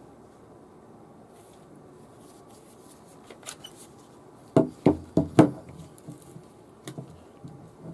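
Hard parts of a cordless impact driver being handled, giving sharp clacks and knocks: four in quick succession about four and a half seconds in and one more near seven seconds, over a faint steady room hum.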